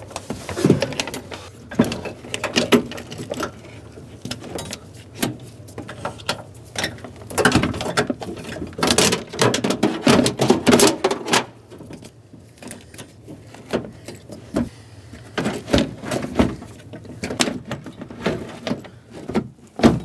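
Irregular plastic and metal clicking, knocking and rattling as a sliding-door inner panel with its cables and brackets is handled and pushed into place against the door frame. The knocks come thickest in the middle and thin out for a few seconds after that.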